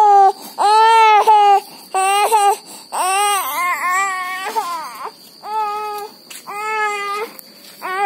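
A toddler crying hard in loud, repeated wails, about one a second, with a wavering, sobbing wail near the middle.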